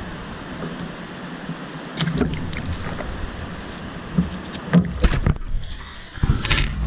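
Scattered clicks and knocks as a blue catfish is unhooked in lip grips beside a plastic kayak, then a splash near the end as the released catfish thrashes off through the surface.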